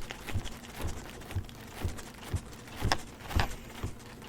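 Folding hand fan being waved close to the microphone: soft puffs of air about twice a second, with faint ticks of the fan's folds.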